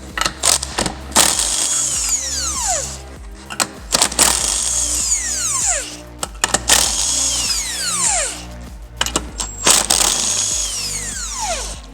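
Background music with a steady beat and a repeating falling sweep about every two and a half seconds.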